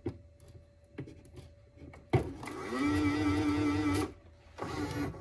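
Bambu Lab AMS filament feeder motor drawing a freshly inserted filament into the unit after its feed button is pushed. A few light clicks come first. About two seconds in the motor starts with a whine that rises and then holds steady for about two seconds, and a shorter run follows near the end.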